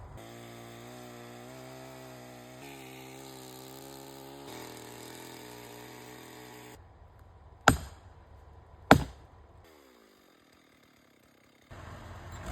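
Chainsaw engine running steadily at low speed, then two sharp loud knocks about a second apart, followed by a brief falling whine and a short near-silent stretch.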